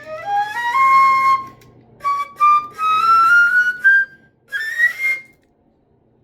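A student flute, one brought in for repair, being played: a series of rising notes climbing into its upper register, with plenty of breath in the tone, ending on a high note about five seconds in.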